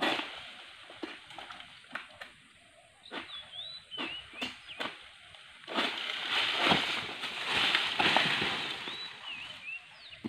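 Long-poled palm harvesting sickle (egrek) knocking and catching at the base of oil palm fronds several times. About six seconds in, a cut frond comes down with a rising then fading rustle and crash of dry palm leaves.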